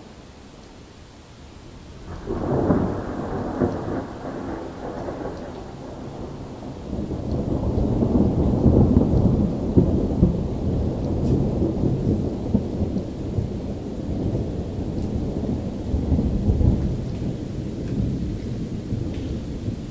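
Thunder over steady rain: a sudden clap about two seconds in, then a long rolling rumble that swells to its loudest around the middle and keeps rolling.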